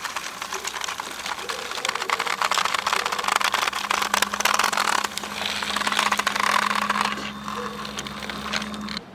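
Battery-powered toy train running along plastic track: a dense, fast rattle of its wheels and wagons on the track, with a steady small-motor hum joining about two seconds in.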